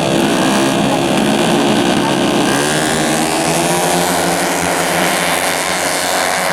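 Several tuned 130 cc automatic scooter engines running at high revs in a race, a steady droning buzz whose pitch shifts as the machines pass.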